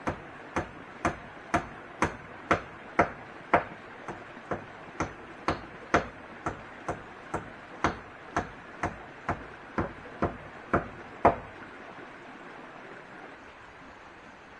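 Steady series of sharp blows of a hand tool striking wood, about two a second, that stop about eleven seconds in.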